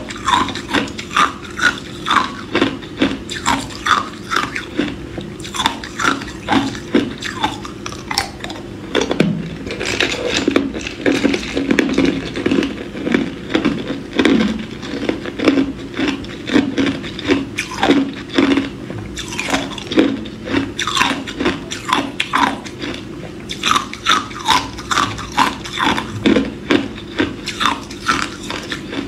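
Hard clear ice, a slab of joined cubes, being bitten and crunched in the mouth: repeated sharp cracks about one or two a second, with a denser run of crunching in the middle.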